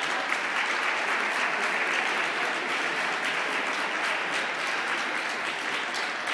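Audience applauding, a steady dense clapping from many hands.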